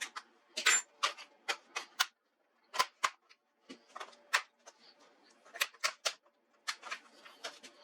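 Irregular sharp clicks and taps of small plastic and metal parts being handled and tools working on a laptop during disassembly, about a dozen over several seconds.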